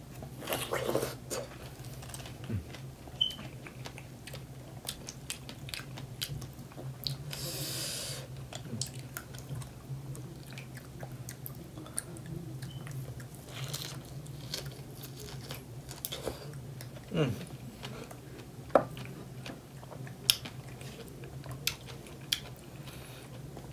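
People chewing and biting into fresh strawberries close to the microphone, with frequent wet mouth clicks and smacks over a steady low hum.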